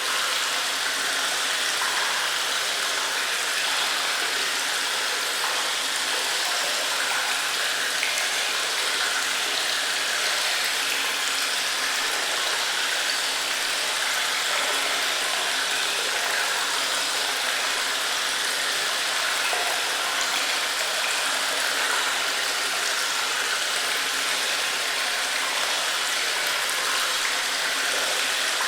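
Cave ambience: a steady, unbroken wash of running water, hissy and bright, with no separate drips or footsteps standing out.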